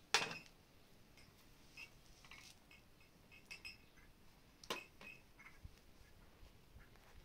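Glass tea glasses and a metal serving tray clinking as glasses are handled: a sharp clink at the start, another just under five seconds in, and several lighter clinks in between.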